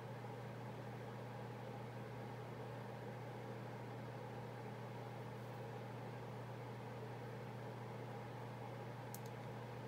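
Steady room hum from a motor or fan: a constant low drone under an even hiss, with one short click about nine seconds in.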